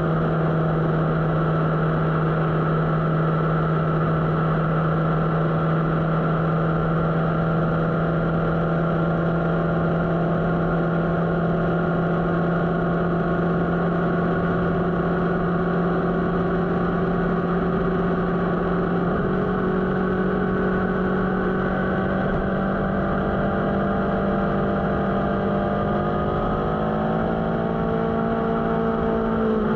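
Motorcycle engine running at a steady cruise, its note holding level, then rising a little about two-thirds of the way through and climbing further in the last few seconds, over a constant rush of wind and road noise.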